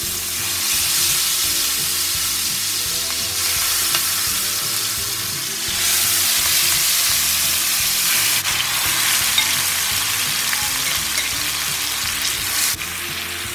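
Chicken drumsticks coated in green cafreal masala sizzling as they are laid piece by piece into hot oil in a pan. The frying hiss gets louder about halfway through and drops off suddenly near the end.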